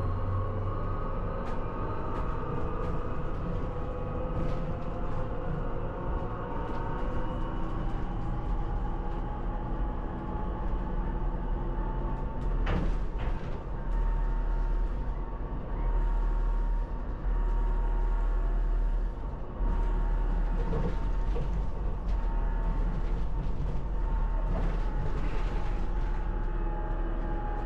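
Inside an electric bus travelling along a busway: a steady low rumble of tyres and road with the electric drive's whine holding a few steady tones that drift slightly in pitch. A sharp knock or rattle comes about halfway through, and a few more come near the end.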